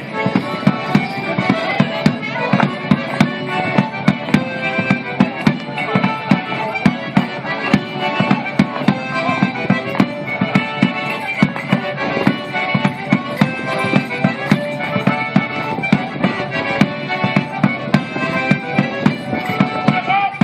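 A traditional folk dance tune for Morris dancing, played live on a squeezebox, with a steady beat of sharp knocks about twice a second.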